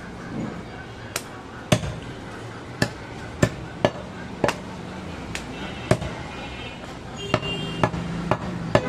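Large curved butcher's knife chopping goat meat on a wooden log chopping block: about ten sharp knocks of the blade striking through into the wood, at uneven intervals.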